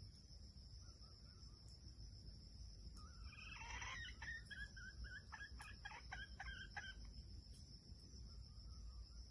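Faint red junglefowl calls: one drawn-out call about three seconds in, then a run of about eight short clucks at roughly three a second. A steady high-pitched hum runs underneath.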